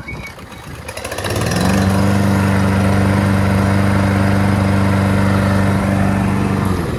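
Hayter Harrier 41 petrol lawnmower engine starting about a second in, then running at a steady speed, and stopping just before the end.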